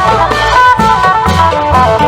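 Isan klong yao band music: a phin (Isan plucked lute) playing a fast, busy melody over a steady beat of long drums.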